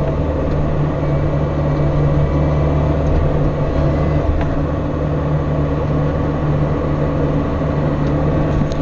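Bobcat mini excavator's diesel engine running steadily under working load with a constant low hum, while its bucket smooths soft mud.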